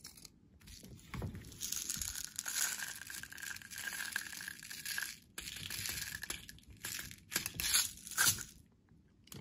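Steel BBs rattling in a plastic bottle and trickling from its spout into a BB pistol magazine, in two runs with a short break a little past the middle, with a few sharp clicks of handling.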